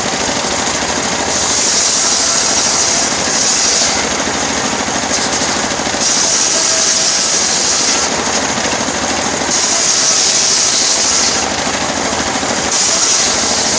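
Homemade engine-powered circular sawmill running with a steady engine drone, with several stretches of a few seconds each where a louder, higher cutting noise rises over it as the blade goes through teak.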